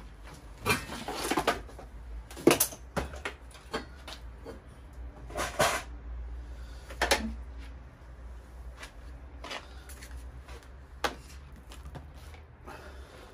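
Handling noise: a scatter of knocks, clunks and rattles as a multimeter, its test leads and a hand-held tool are picked up and moved about. The loudest clunks come about two and a half and five and a half seconds in.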